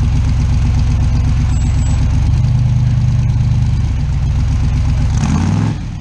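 Rock buggy's engine working as the buggy climbs a rock ledge. The engine note steps up about two seconds in, then falls away with a dip in loudness near the end as the throttle comes off.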